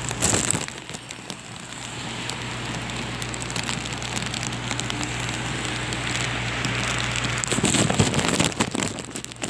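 Heavy rain coming down steadily, with many small drop ticks, as strong wind gusts buffet the microphone; the loudest gust comes about eight seconds in. A low steady hum underneath stops shortly before that gust.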